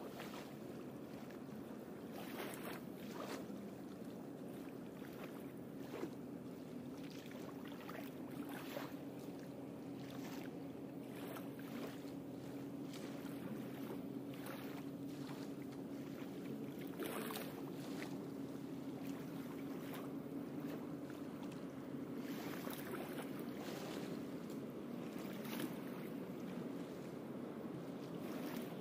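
A faint steady motor hum that grows stronger through the middle and fades again near the end, over steady open-air noise with scattered soft clicks.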